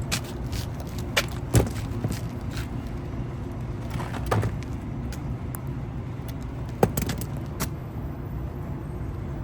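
Clicks and knocks of hand tools and wire being handled while extending the leads of a condenser fan motor, over a steady low hum. The sharpest taps come about a second and a half in and near seven seconds.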